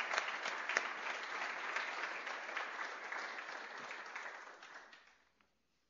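Audience applauding, a dense patter of many hands with a few sharp individual claps standing out, tapering off and stopping about five seconds in.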